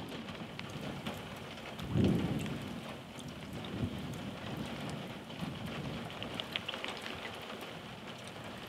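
Steady rain falling on a soaked swamp, with many small drop ticks close by. A low gust of wind rumbles on the microphone about two seconds in.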